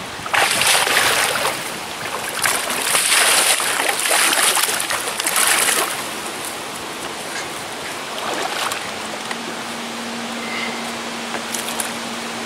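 A hooked wels catfish splashing and thrashing at the surface beside the boat, in loud bursts over the first six seconds, then settling to a softer wash of water. A steady low hum comes in about three quarters of the way through.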